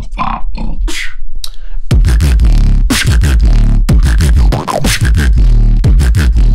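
Beatboxing: sharp percussive clicks over a deep, heavy bass line. It breaks off briefly about a second in, then comes back as a dense, bass-heavy beat.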